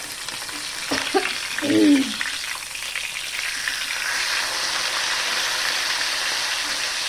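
Food frying in hot oil in a pan: a steady sizzle that builds from about three seconds in and then holds even, with a sharp knock about a second in.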